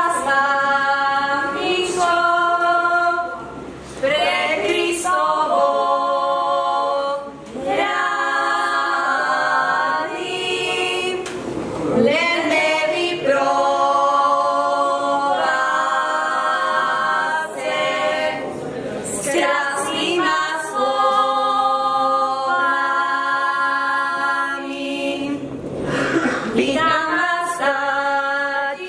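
A group of women's voices singing an unaccompanied Slovak folk wedding song for the bride's capping (čepčenie), in long held phrases with short pauses for breath.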